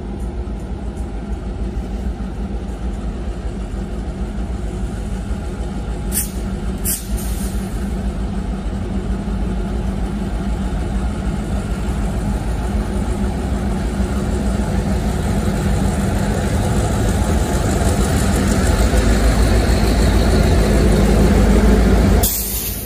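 Canadian National diesel freight locomotives approaching and passing, a steady low engine rumble that grows louder as they come close, then drops suddenly near the end. Two sharp clicks sound about six and seven seconds in.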